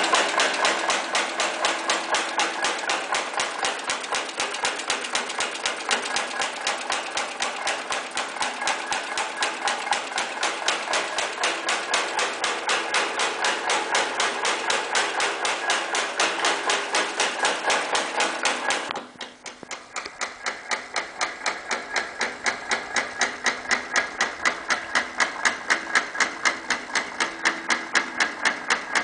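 Silicon STA high-speed punching press stamping teeth into a steel band saw blade strip: a fast, even clacking of press strokes, several a second. About two-thirds of the way through the sound drops suddenly, then the strokes build back up with a duller, more distinct beat.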